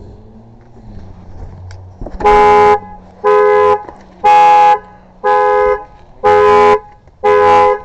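2010 Chevrolet Corvette's horn sounding in repeated two-tone blasts, about one a second, starting about two seconds in: the car's security alarm going off as the locked car is opened.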